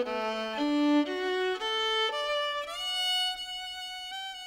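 Outro music: a single melody instrument playing one note at a time, stepping upward through a short phrase and settling on a long held note in the second half.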